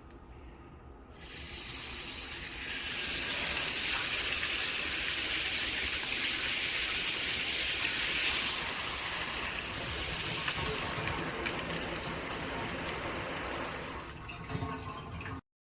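FEELSO filtered handheld shower head spraying water in a steady hiss, starting about a second in, loudest in the middle, and cutting off suddenly near the end.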